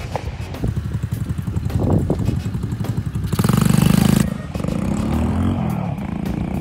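Mini Jeep's small engine running under throttle, revving hard for about a second near the middle as it is driven up the wood chip pile, then falling in pitch as it eases off.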